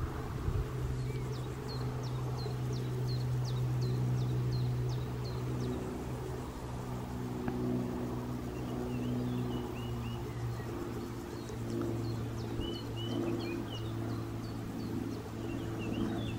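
A steady low engine hum, with a small bird singing runs of short, high falling notes, about two a second.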